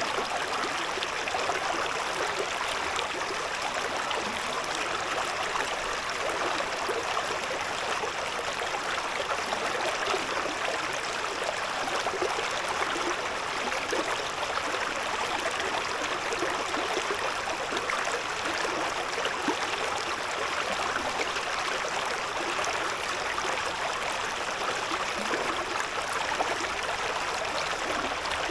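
A shallow river burbling over stones in a steady, even murmur.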